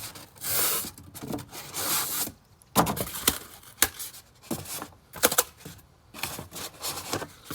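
Styrofoam sheets scraping, rubbing and knocking against cardboard as they are worked into a box. Irregular scrapes are broken by several sharp knocks.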